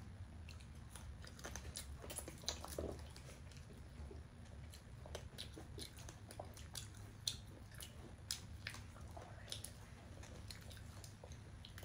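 Close-up chewing and biting of crispy roast chicken: irregular small crunches, crackles and wet mouth sounds over a low, steady hum.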